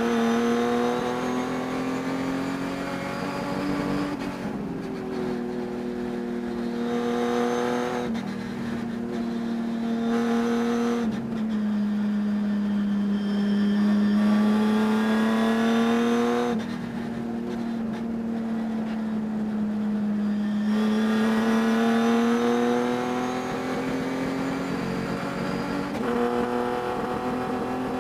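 Race car engine running hard through a race, its pitch climbing and then dropping at gear changes or lifts about every few seconds. The engine carries a high-RPM miss that the driver could not cure all day.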